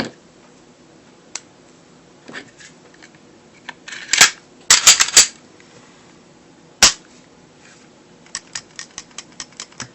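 Glock 30 pistol being handled while it is put back together: plastic-and-metal clicks and clacks, loudest in a cluster about halfway through. A single sharp click follows, then a quick run of light ticks near the end.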